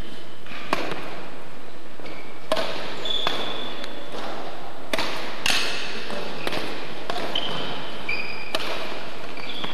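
Badminton rackets striking a shuttlecock in a rally: about five sharp cracks, one every second or two, with short high squeaks of trainers on the sports-hall floor in between.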